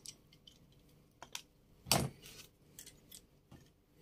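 Small plastic clicks and taps from the hotend's front cooling fan being lifted off and the plastic hotend housing being handled. There is one louder knock about two seconds in.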